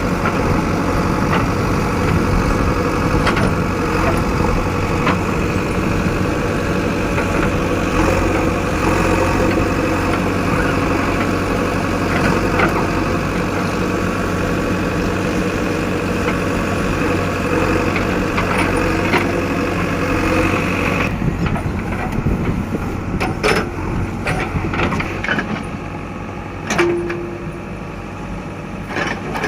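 JCB 3DX backhoe loader's diesel engine running steadily. About two-thirds of the way through it turns quieter, and a few scattered knocks follow.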